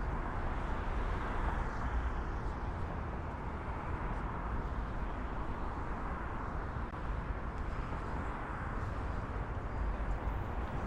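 City street traffic: a steady wash of car and road noise with a low rumble, swelling gently now and then as vehicles pass.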